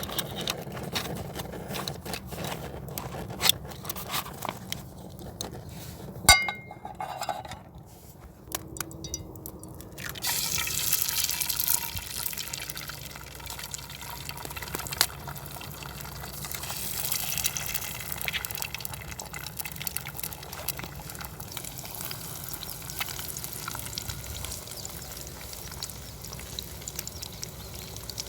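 Scattered clicks and knocks, one sharp knock about six seconds in, then from about ten seconds in a steady hiss of water running.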